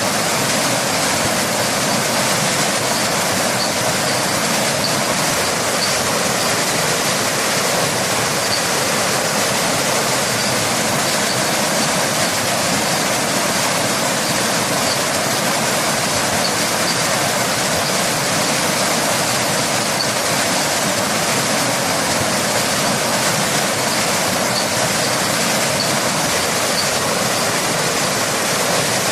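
Waterfall rushing steadily, a constant roar of falling water.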